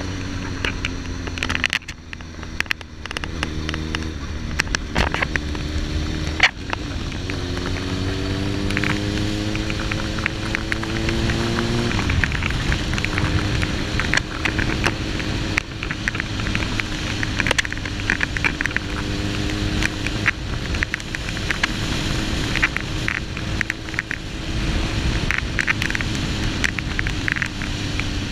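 Suzuki GSX-R1000's inline-four engine under way, its pitch climbing smoothly for about five seconds and then dropping sharply near the middle at a gear change. Steady wind rush and frequent crackling clicks run over it, a fault in the recording.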